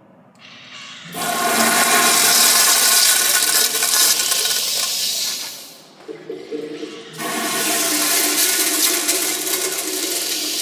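Kohler urinals' flushometer valves flushing twice in turn: a loud rush of water starts about a second in and fades out around the middle, then a second flush starts a little later and is still running at the end.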